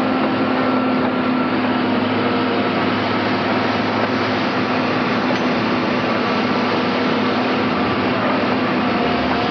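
Large excavator's diesel engine running steadily under load: a constant, even mechanical noise with a steady hum.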